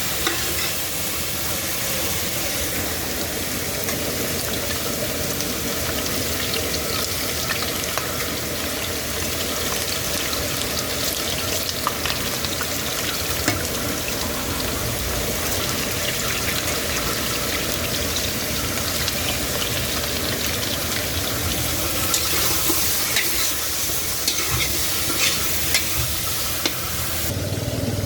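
Food sizzling as it fries in a pan, with a steady hiss and scattered clicks and scrapes of a utensil stirring it. The sizzling drops off abruptly about a second before the end.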